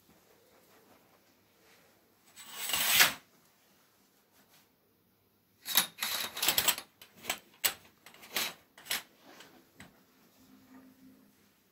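A single swish that swells and cuts off, then a run of sharp clicks and rattles lasting about three seconds as window curtains are drawn closed, the curtain clattering along its rail.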